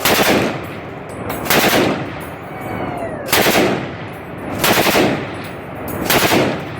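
Automatic gunfire: a machine gun fired in five short bursts of several rounds each, about one burst every second and a half.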